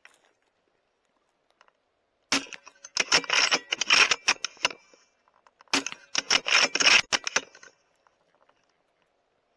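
Two subsonic .308 Winchester rifle shots about three and a half seconds apart, each followed by the bolt being worked hard: a quick run of metallic clicks and rattles lasting about a second and a half.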